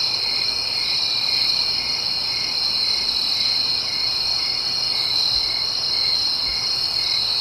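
Chorus of crickets trilling steadily, with a second, lower chirp repeating about twice a second.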